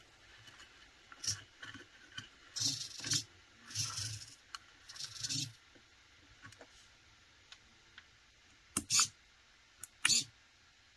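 DS3225 digital servo, driven from a servo tester, whirring in several short bursts as its arm swings with the PWM setting. Near the end there are two short sharp bursts as a push-button switch is pressed and the servo moves again.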